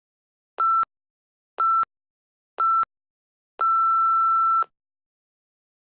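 Electronic interval-timer countdown: three short beeps a second apart, then one long beep lasting about a second, all at the same pitch, signalling the start of the first work interval.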